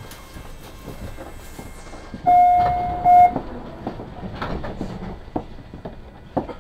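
MBTA Red Line subway car's door chime: one steady electronic tone held for about a second, over the stopped car's rumble and hum. Several knocks and clunks follow as the doors work.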